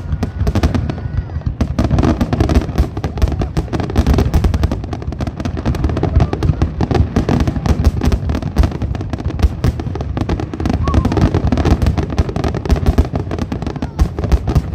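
Fireworks going off in a dense, unbroken barrage of cracks and bangs, many every second.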